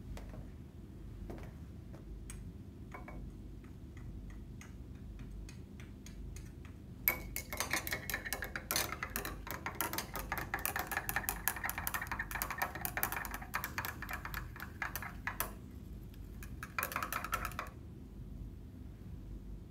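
Glass stirring rod clinking rapidly against the inside of a glass beaker as it stirs a cloudy mixture, starting about a third of the way in and lasting about eight seconds, then a short second spell of clinking near the end.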